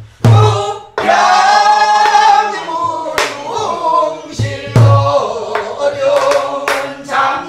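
A group of voices singing pansori together, with deep strokes on buk barrel drums near the start and again about two thirds of the way through.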